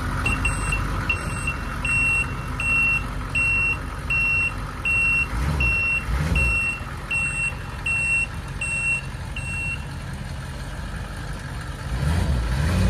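Diesel engine of a 1992 GMC Vandura 3500 box truck running while a backup alarm gives evenly spaced high beeps, about one every three-quarters of a second, as the truck reverses. The beeping stops about ten seconds in, and the engine's low rumble swells briefly in the middle and again near the end.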